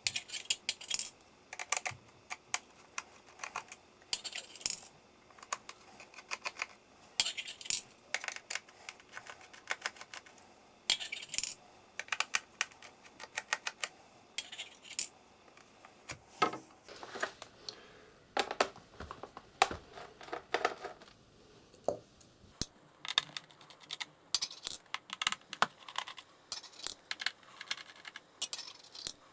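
A run of light clicks, taps and small rattles from a precision screwdriver working screws out of a laptop's plastic bottom case, and small metal screws being dropped into a plastic organizer tray.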